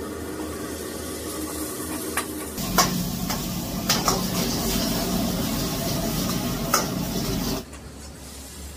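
Beef sizzling as it is stir-fried in a hot wok, with the spatula clanking against the metal a few times. The sizzle starts about two and a half seconds in and cuts off suddenly near the end, over a steady hum.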